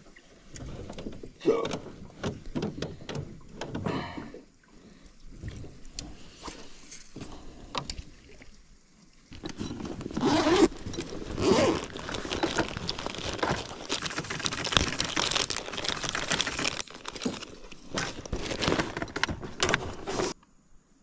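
Close handling noise of fishing gear: scattered clicks and rustles, then from about nine seconds in a longer, louder stretch of rustling and clattering as a soft tackle bag is held open and rummaged through. It cuts off abruptly near the end.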